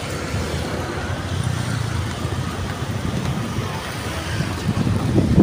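City road traffic passing: a steady low rumble of engines and tyres that swells slightly about two seconds in, with uneven low thumps near the end.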